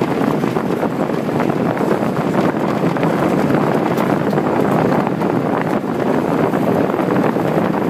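Blizzard wind blowing hard across the microphone: a loud, steady rushing noise.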